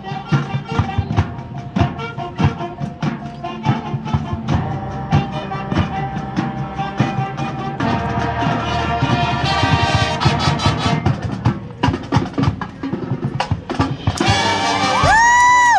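Marching band playing, with drums and brass. Near the end comes a loud, high held note that bends up and then falls away.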